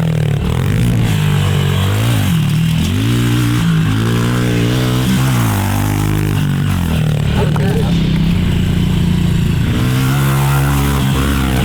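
Small pit bike engine being ridden hard on a dirt track, its pitch rising and falling over and over as the throttle is opened and closed.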